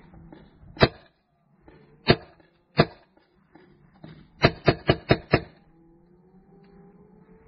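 Magazine-fed paintball marker firing: three single shots about a second apart, then a quick string of five.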